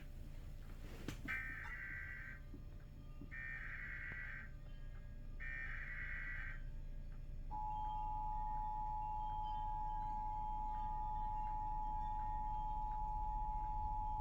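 Emergency Alert System tones: three bursts of about a second each of the warbling digital SAME header, then, about seven seconds in, the steady two-tone EAS attention signal starts and holds. Together they mark the start of an emergency alert, here a flood warning.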